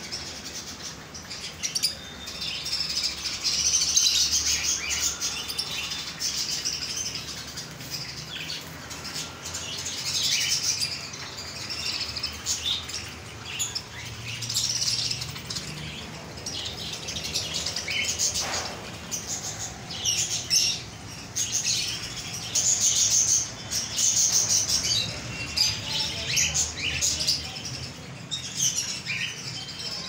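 A flock of caged budgerigars and lovebirds chirping and chattering all at once: a dense, high-pitched twittering that swells and dips without pause.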